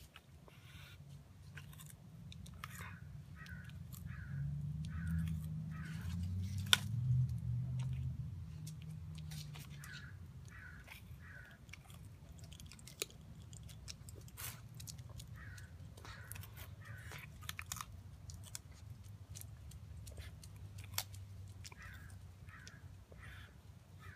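Sulcata tortoise chewing raw carrot pieces, with sharp irregular crunches as its beak snaps through them. Crows caw in short groups in the background, and a low rumble swells and fades around the middle.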